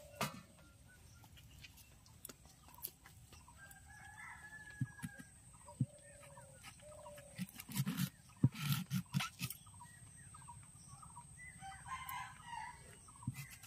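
A rooster crowing and chickens clucking, with a long held crow about four seconds in and more calls near the end. Sharp knocks and scrapes of green mangoes being cut on a curved boti blade are heard throughout, loudest in a quick run past the middle.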